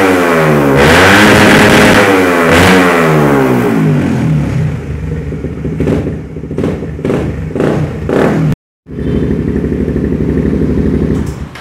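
Suzuki GSX-R150's single-cylinder engine revved up and down several times, then settling to a steady idle broken by short sharp blips, during a tune-up. The sound cuts out for a moment about eight and a half seconds in, then the idle carries on.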